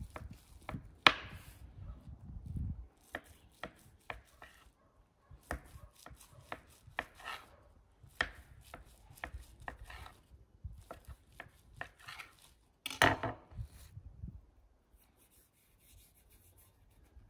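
Kitchen knife cutting through soft dough and tapping against the board underneath, in an irregular series of sharp taps, with a louder cluster of knocks a little past the middle.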